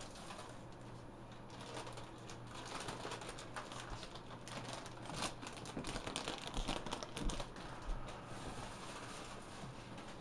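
Hands rubbing and handling the green fleece and foam of a fursuit foot: an irregular run of rustling and crinkling with many small clicks, busiest in the middle and easing off near the end.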